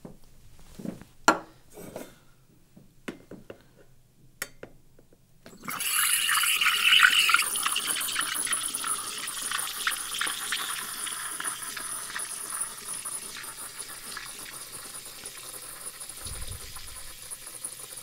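DeLonghi EC155M's Panarello steam wand frothing milk in a stainless steel pitcher: a steady hiss and gurgle that starts about six seconds in and slowly fades, after a few light clicks and knocks.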